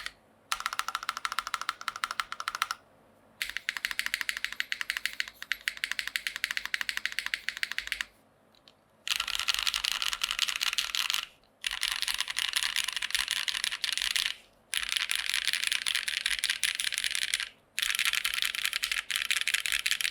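Fast typing on a Daji Ocho Cuatro TKL mechanical keyboard with broken-in, lubed and filmed Cherry MX Black linear switches on an aluminum top-mount plate with GMK keycaps. The typing comes in six bursts of a few seconds each, with short pauses between them; the bursts from about nine seconds in are louder.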